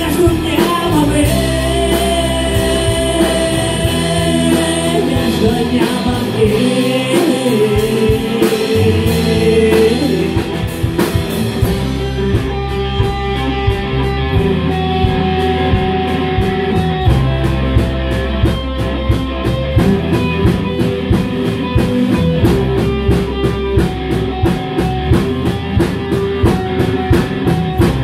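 Live rock band playing an instrumental passage: drum kit, acoustic guitar and keyboard, with a held melody line over the first half and a steady drum beat carrying the rest.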